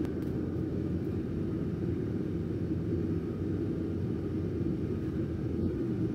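Hot steel samples quenching in a drum of quench oil, the oil bubbling around them in a steady low rumble as they are held and stirred with tongs.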